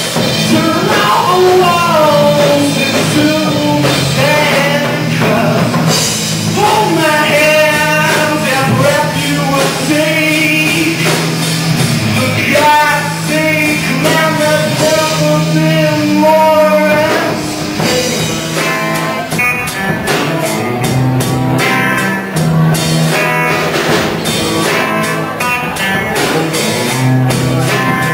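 A band playing a rock song live, with a singer over guitar and a drum kit. The singing thins out about two-thirds of the way through, leaving the guitar and drums more to the fore.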